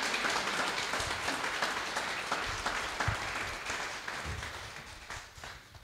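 Audience applauding, the clapping gradually dying away toward the end.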